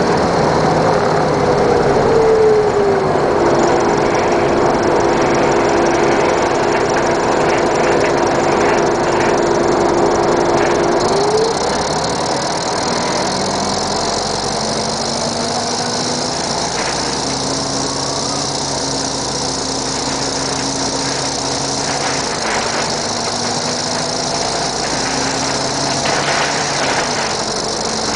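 The Detroit Diesel Series 50 four-cylinder diesel engine of a 1996 NovaBUS RTS transit bus running. A tone in its sound falls in pitch over the first few seconds, holds steady, then rises and fades about eleven seconds in. After that the engine runs on slightly quieter, with lower steady tones and a brighter hiss.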